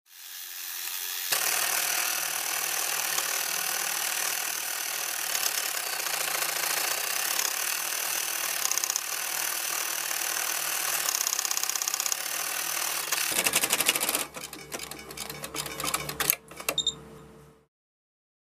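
Sewing machine stitching steadily with a low hum, then breaking into a run of separate clicks near the end before stopping.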